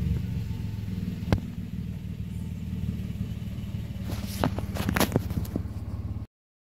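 Mitsubishi Mirage G4 engine running steadily at idle, now that the cleaned throttle body and stepper motor let it start. A sharp click about a second in and a few more clicks near the end; the sound cuts off abruptly.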